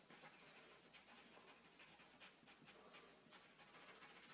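Faint scratching of a black Sharpie marker on paper, in many quick short strokes as an area is filled in solid black.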